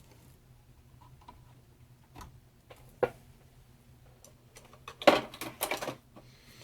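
Hands working on PC parts and cables: scattered sharp clicks and knocks, then a busier run of clatter about five seconds in.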